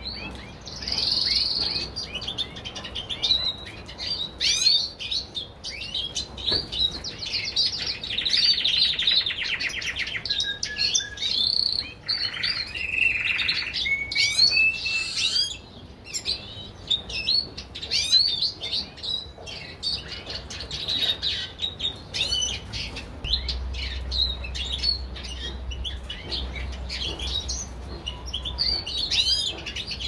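A flock of aviary songbirds, canaries and European goldfinches, chirping and singing over one another, with a long fast trill about a third of the way through.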